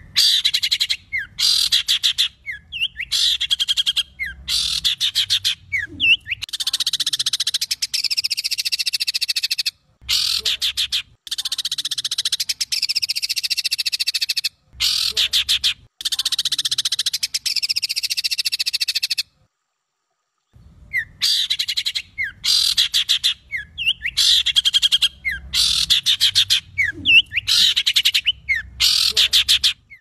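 A songbird's harsh, rapid song, the kind of coarse 'tembakan' phrases used as masteran to train caged songbirds. Long runs of dense, rasping chatter alternate with fast rattling trills. The song cuts off abruptly to silence a few times, around the middle and again about two-thirds through.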